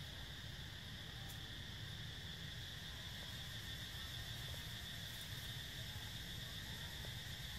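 Steady, high-pitched drone of an insect chorus in the trees, unchanging throughout, over a low rumble.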